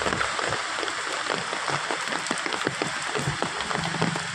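Muddy rainwater from an overflowing drain rushing across the ground: a steady rush of running water with many small splashes and drips.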